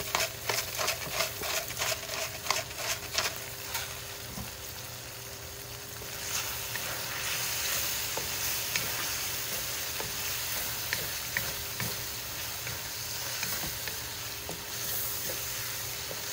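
Sliced beef in a soy-based sauce sizzling in a frying pan while a spatula stirs it. A run of quick taps sounds over the first few seconds, then the sizzle grows louder and steadier from about six seconds in.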